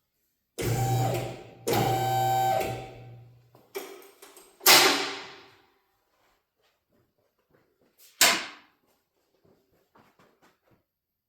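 Vehicle lift's electric motor humming in two short runs, followed by loud metallic clanks that ring out, the lift being lowered.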